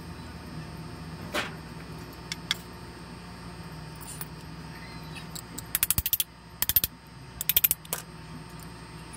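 Sharp metallic clicks while a motorcycle starter motor with a worn carbon brush is taken apart by hand. Single clicks come in the first few seconds, then three short fast runs of clicking from about halfway in.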